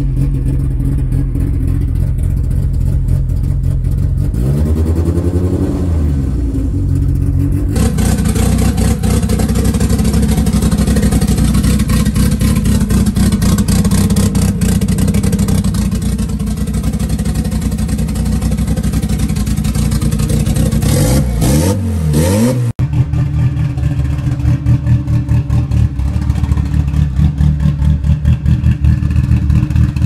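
Modified Honda four-cylinder engines idling with VTEC locked on, in successive clips. There is a quick throttle blip that rises and falls about five seconds in and another about three-quarters of the way through. Near the end there is a choppy, pulsing idle.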